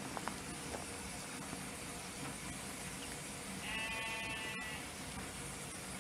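A sheep bleats once, about four seconds in, a single wavering call lasting about a second, over a steady background noise.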